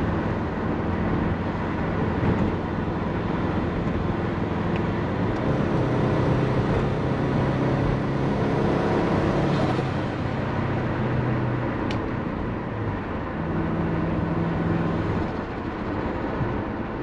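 Turbocharged Subaru Forester EJ20 boxer four running while driving. Its revs climb steadily for about four seconds around the middle, then drop back.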